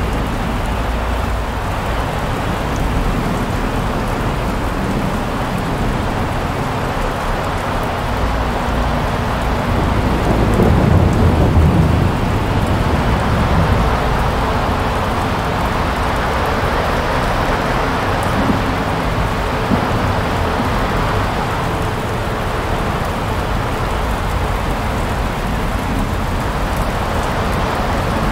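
Steady rushing noise of a severe storm, rain and wind. A low rumble swells louder about ten seconds in and eases off a few seconds later.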